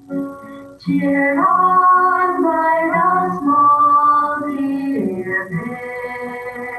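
Women singing together to a strummed acoustic guitar. The voices drop out briefly at the start and come back in about a second in.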